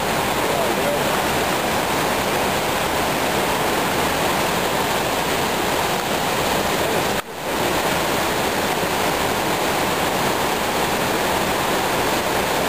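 Steady rushing noise at an even level, broken by a brief dropout about seven seconds in.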